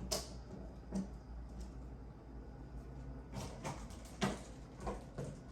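A few light, sharp knocks and handling sounds scattered through, over a steady low hum.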